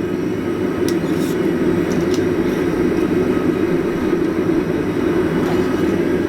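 A forge running with a steady low roar, with a few faint metallic clinks over it.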